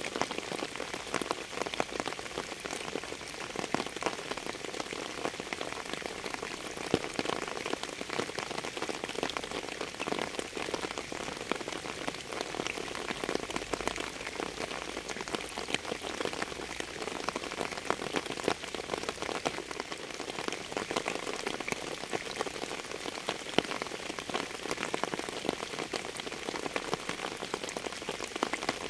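Steady rain with many distinct drop impacts.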